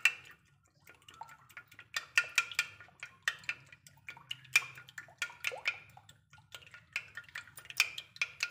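Metal spoon stirring a liquid egg-and-milk mixture in a glass baking dish, clinking against the glass in irregular light taps with a brief ring. It is quiet at first, and the clinking starts about two seconds in.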